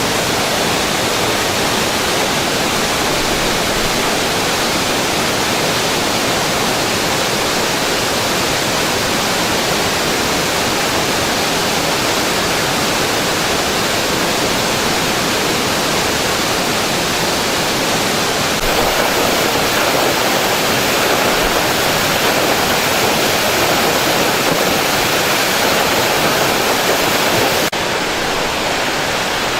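Waterfall rushing: a steady, loud wash of falling water with no pauses, stepping up a little about two-thirds through and dropping back slightly near the end.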